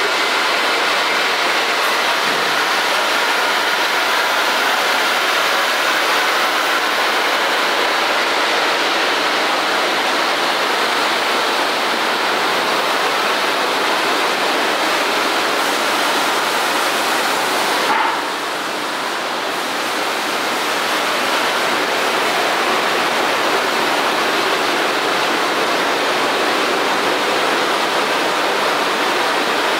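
Steady hiss of factory hall machinery and air handling, an even wash of noise with no distinct tones, easing briefly a little past the middle.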